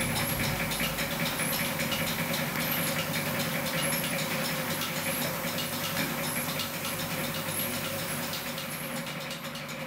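A machine running steadily with a hum and hiss, with light ticking through it.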